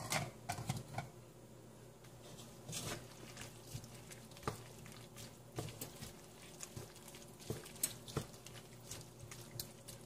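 Wooden spatula stirring chopped vegetables in a stainless steel wok: irregular light taps and scrapes on the metal.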